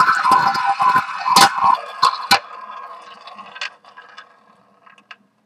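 Ball of a tabletop roulette wheel rolling around the spinning bowl, loud at first and fading, then clattering against the pocket dividers with a few sharp clicks between about one and a half and two and a half seconds in. It dies away to light ticks as the wheel slows.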